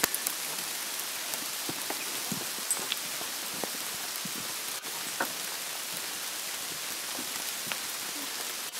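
Steady rain falling on a wet wooden boardwalk: an even hiss with scattered sharp hits of single drops.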